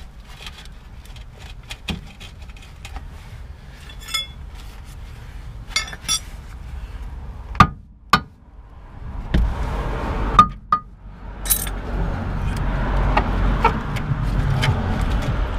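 Metal tools clinking and knocking against a steel lower suspension arm and its mounting as it is worked loose from the rusted-in mount, with scattered sharp taps, a few of which ring briefly. From about nine seconds in, a low rumbling noise rises underneath and keeps growing.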